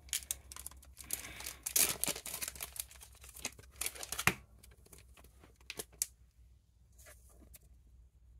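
Plastic card sleeves crinkling and rustling in the hands for about four seconds. After that, only a few light clicks and rustles as a trading card is handled.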